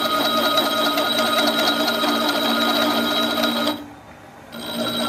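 A machine tool cutting the teeth of a large steel gear with a single-point cutter: a fast, even mechanical clatter over a steady whine. The sound drops away for under a second about four seconds in, then returns.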